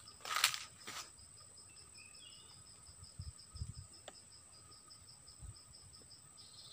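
Insects chirping in a steady, fast pulsing rhythm of about five pulses a second, with two brief rustles in the first second and a few faint bird chirps.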